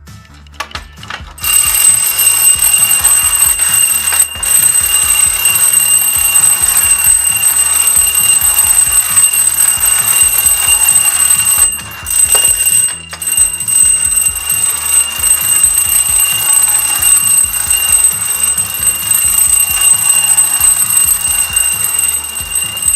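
Wind-up tin toy Santa on a bicycle running, its built-in bell ringing continuously like an alarm-clock bell, really loud and noisy. A few clicks start it, then the ringing carries on steadily with two brief breaks a little past halfway.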